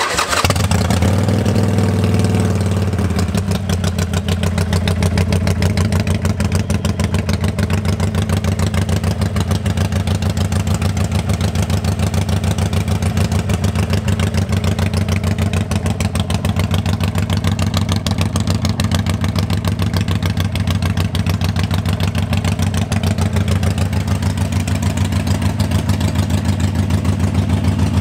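A superbike engine idling steadily through its exhaust, with an even low pulse and no revving.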